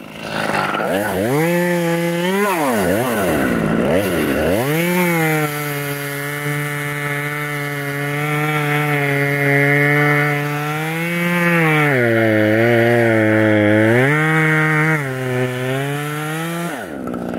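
Top-handle chainsaw revving up, easing off briefly, then held at high revs while cutting into the tree. Its pitch drops for a couple of seconds about twelve seconds in as the chain bogs down in the wood, then picks up again before the saw comes off the throttle near the end.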